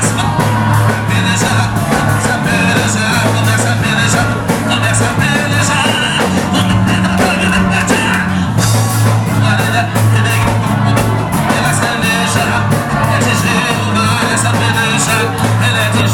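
Live band playing loud rock-style worship music with singing, a heavy bass line and a steady drum beat.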